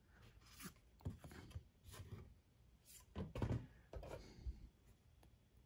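Faint handling noise of a glossy trading card being slid apart from the card behind it and turned in the fingers: a few soft clicks and paper rustles, loudest about three seconds in.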